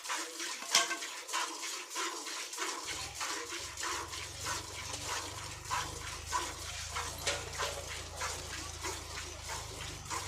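Milk squirting from a cow's teats into a pail during hand milking, a run of short hissing squirts at a quick, regular pace.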